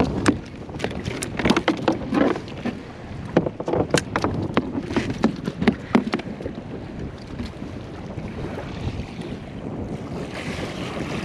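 Irregular clicks and knocks of a small black sea bass being handled and unhooked on a kayak deck. Wind on the microphone grows near the end.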